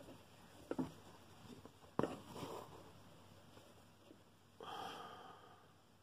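Faint handling of an embroidery hoop and fabric: a few soft taps and a sharp click about two seconds in. Near five seconds comes a short breath through the nose, lasting about half a second.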